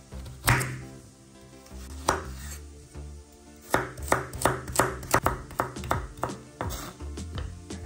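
Kitchen knife cutting a raw carrot on a wooden cutting board: a single cut about half a second in, another near two seconds, then a quick run of chops, about four a second, as the carrot is diced.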